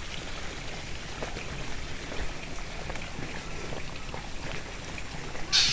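Steady rain with scattered drips and patters, and one short, loud hiss near the end.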